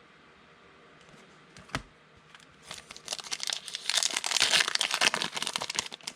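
Thin trading-card pack wrapper being torn open and crinkled by hand. A single click comes just under two seconds in, and the crackling starts about a second later, loudest around four to five seconds in.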